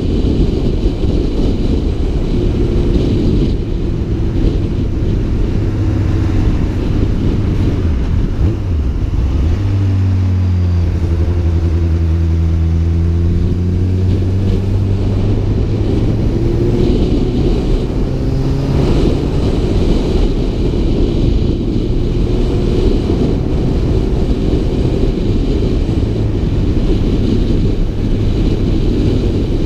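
Wind buffeting the microphone of a helmet-mounted camera while riding a Honda CB600F Hornet, with the bike's inline-four engine underneath. Around the middle the engine note comes through plainly as its pitch falls with slowing for a roundabout, then it rises again as the bike pulls away.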